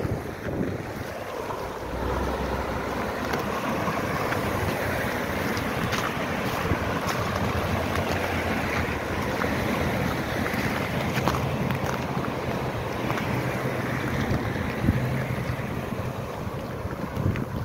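City street traffic: a steady wash of car tyres and engines passing on the road, with wind buffeting the microphone and faint footsteps on icy pavement. A low engine hum comes in for a few seconds past the middle.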